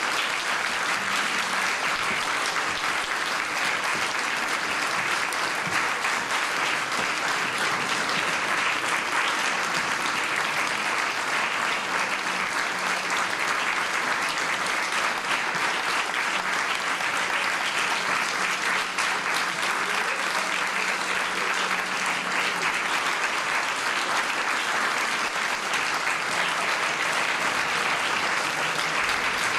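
Audience applauding steadily: a dense, even clapping that keeps up without a break.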